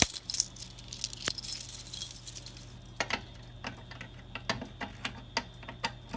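A ring of keys jangling for about two and a half seconds, then a run of separate light clicks and taps. This is a key being used to reset a fire alarm pull station.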